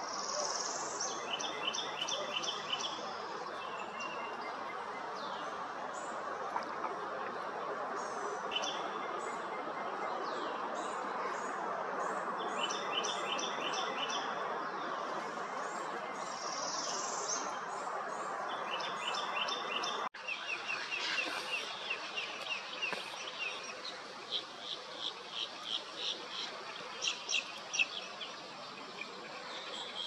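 Small songbirds singing repeated short trilled phrases every few seconds over a steady background hiss. About two-thirds of the way through the ambience changes, and quick, separate chirps follow.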